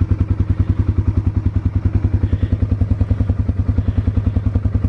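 Pickup truck engine idling close by: a steady, rapid low throb of about a dozen pulses a second.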